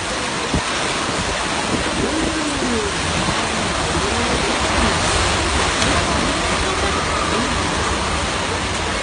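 Torrential rain driven by storm-force wind in a severe thunderstorm: a loud, steady rush of water and wind.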